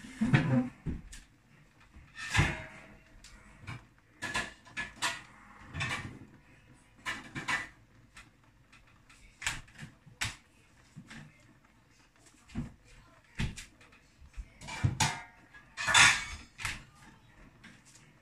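Kitchen clatter: a string of irregular knocks and clinks from things being handled, roughly one a second, the loudest near the start and about sixteen seconds in.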